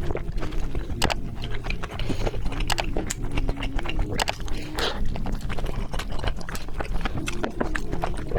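Close-miked eating sounds: an irregular run of sharp mouth clicks and smacks as someone chews.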